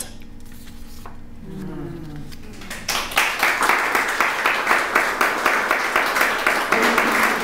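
Audience applauding at the end of a poem, starting about three seconds in as a dense, even clapping that carries on steadily.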